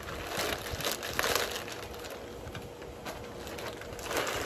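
Large plastic bag crinkling and rustling as it is pulled off a radiator and fan assembly, in bursts about a second in and again near the end.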